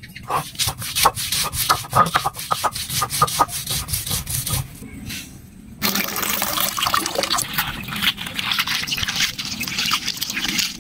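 A stone roller crushing garlic cloves on a grinding stone (shil-nora), a quick run of knocks and scrapes for about four seconds. Then, about six seconds in, water pours in a steady stream into a pot.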